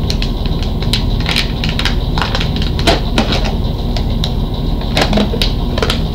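A Pringles can being opened by hand, its foil seal crackling and tearing as it is peeled back, in a string of sharp irregular clicks and crackles over a steady low hum.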